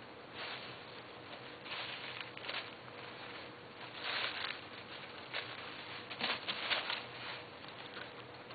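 Wrapping paper rustling and crinkling in uneven bursts as a kitten plays in it, loudest about four seconds in and again around six to seven seconds.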